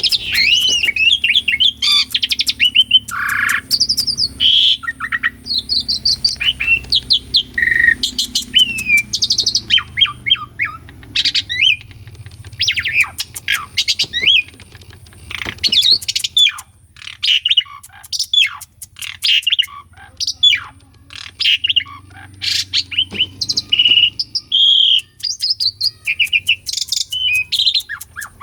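Pied starling (jalak suren) in full song: a fast, varied run of whistles, rising and falling slurred notes and sharp clicking notes, with hardly a pause.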